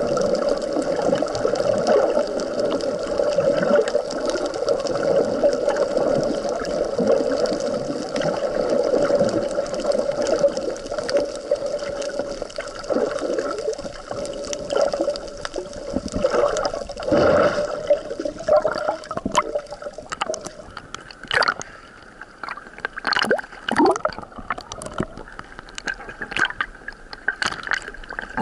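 Muffled underwater water noise picked up by a submerged camera in wavy surf, steady at first. About two-thirds in it breaks up into gurgles and many sharp clicks.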